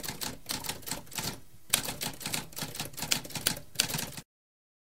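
Typewriter typing: a quick irregular run of key strikes with a short pause about a second and a half in, cutting off suddenly about four seconds in, followed by dead silence.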